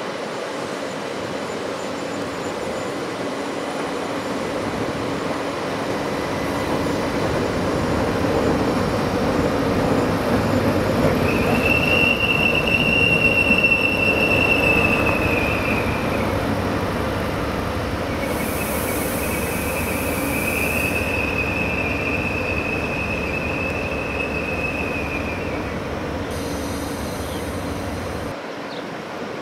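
An ÖBB train running past with a steady rumble that swells towards the middle, its wheels squealing on the rails in two long, high-pitched squeals: one about eleven seconds in lasting some four seconds, and a longer one from about eighteen seconds in. The low rumble drops away sharply near the end.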